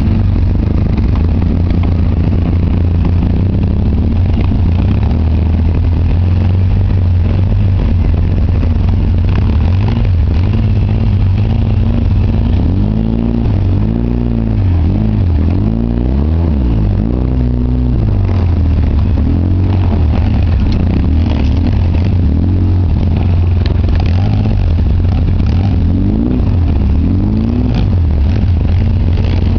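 The twin-cylinder engine of a 2009 Polaris Ranger RZR 800 side-by-side runs under load while driving through snow. Its pitch rises and falls repeatedly with the throttle through the second half.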